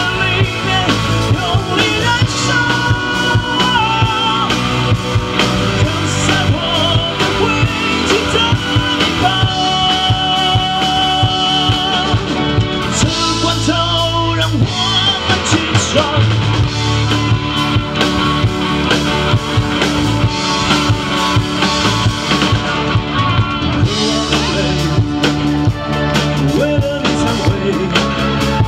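Live rock band: a male singer singing into a microphone over drum kit and guitar.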